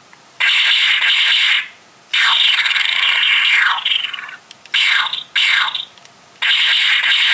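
Space: 1999 stun gun replica, set to stun, playing its electronic hissing zap sound effect about five times as it is fired, short zaps and longer ones of a second or two, some ending in a falling sweep.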